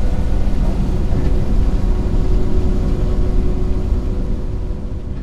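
Bizon BS Z110 combine harvester running steadily under harvest, heard from inside the cab: a loud, even mechanical drone with two steady whining tones over it. It fades out near the end.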